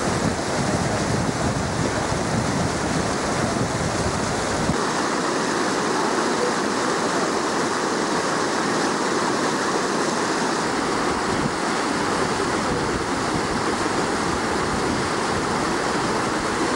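Fast-flowing floodwater of a swollen river rushing, a steady continuous wash of water noise. The deep rumble drops away about five seconds in.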